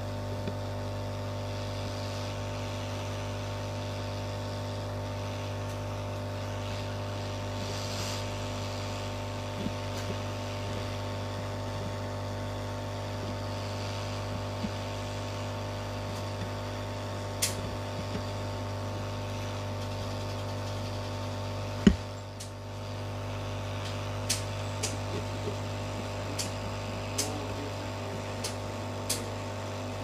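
Heat gun's blower running with a steady hum as it blows hot air onto a small PCB connector. In the second half, small sharp clicks from tweezers working the connector pins, one louder click about two-thirds of the way through.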